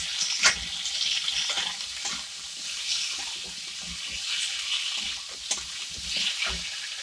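Potatoes and tomatoes with ginger paste sizzling in hot oil in a metal kadai as a metal spatula stirs them, scraping and knocking against the pan several times.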